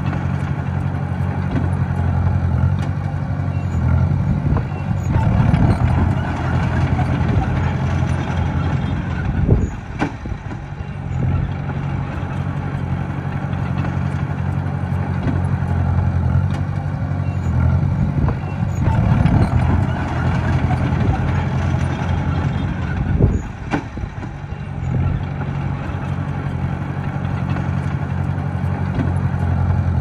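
Diesel engine of a small Komatsu bulldozer running under working load, rising and easing in a repeating cycle, with a sharp knock twice about fourteen seconds apart.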